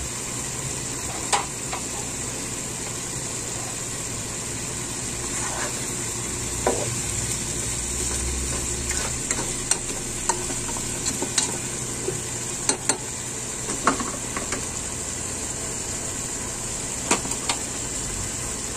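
Chicken pieces with potatoes and pineapple chunks cooking in their juices in a pot, a steady sizzling hiss, while a utensil stirs them and knocks sharply against the pot now and then.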